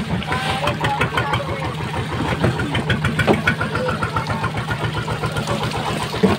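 Fishing boat's engine idling with a steady low throb, close by, while fish splash in the hauled net alongside.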